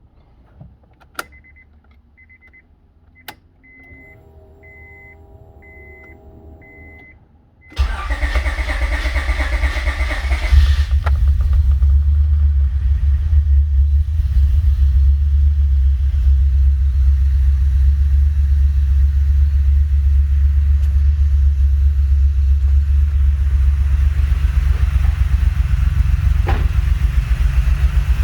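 Honda J35 V6 with Brian Crower cams and 12:1 compression starting up: after a couple of clicks and a repeating dashboard chime beep, the starter cranks for about three seconds and the engine catches. It then settles into a loud, steady idle that runs rough with the normal rockers fitted.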